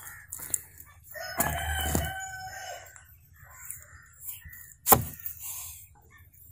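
A rooster crows once, a pitched call of about a second and a half. About five seconds in, a large kitchen knife chops through a tomato and strikes the wooden board with a sharp knock.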